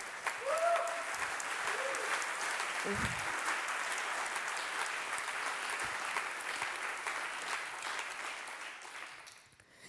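Audience applauding, steady for most of the time and dying away near the end.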